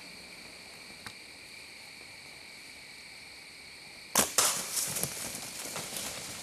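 Compound bow shot: a sudden sharp thwack about four seconds in as the arrow is loosed at a doe, followed by a couple of seconds of rustling and crashing. A steady chorus of insects runs underneath.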